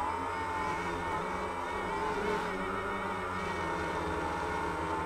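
Quadcopter drone's electric motors and propellers whining steadily in hover, heard up close from the drone's own onboard camera; the pitch wavers slightly up and down as the motors adjust speed to hold position.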